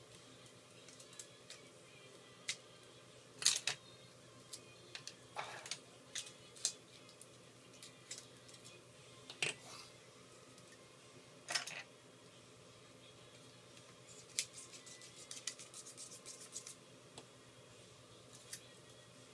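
Small metal repair tools and iPhone 4 parts being handled during disassembly: scattered clicks and short scrapes, with a quick run of ticks about fifteen seconds in, over a low steady hum.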